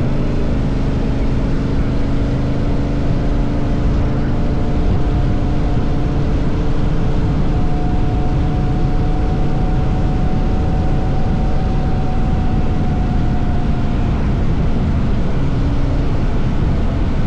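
Honda CRF1000L Africa Twin's parallel-twin engine running at a steady cruising speed, with steady wind and road noise. The engine note holds nearly even, dipping slightly about a second in.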